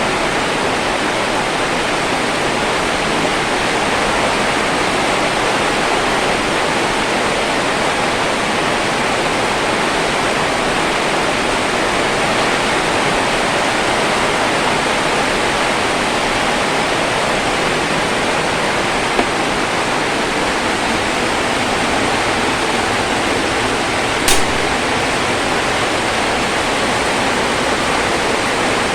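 A steady, even hiss from a pot of water and herbs being boiled on a stove, with one sharp click about 24 seconds in.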